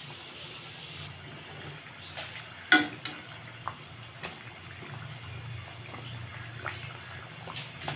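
Samosa deep-frying in hot oil in an iron kadai, a steady sizzle throughout. A sharp, ringing metal clank comes a little under three seconds in as a slotted steel spatula strikes the pan, followed by a few lighter taps as the samosa is turned.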